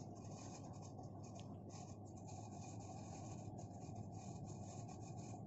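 Faint rustling and scratching of a cotton blanket as a pregnant cat paws and digs at the bedding. The owner takes this digging for a sign that she is about to give birth.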